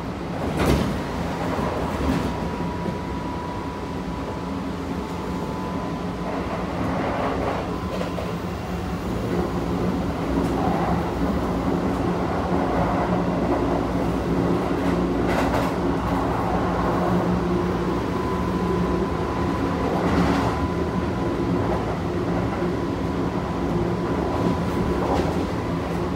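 Kintetsu 1233 series electric train running, heard inside the passenger car: a steady rumble of wheels and running gear with the steady whine of the VVVF inverter-driven traction motors. A few sharp knocks come through, the loudest about a second in, and the sound grows a little louder partway through.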